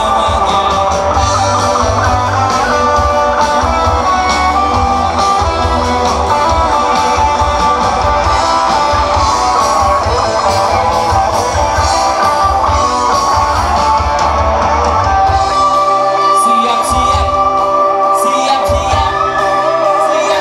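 Live pop-rock band playing through a PA: electric guitars, bass and drums under a male lead vocal singing the song. The deep bass drops away for a few seconds near the end, then comes back in.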